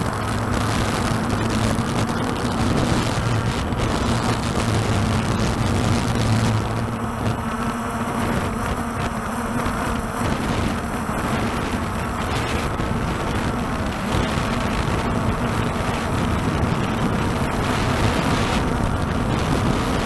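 Walkera TALI H500 hexacopter's electric rotors humming steadily, heard through its onboard camera, with wind noise on the microphone. The lowest part of the hum eases about seven seconds in.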